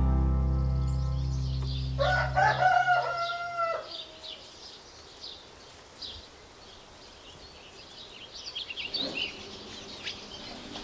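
A rooster crows once, a call of about two seconds with several pitch steps, as background music fades out. Small birds chirp faintly after it.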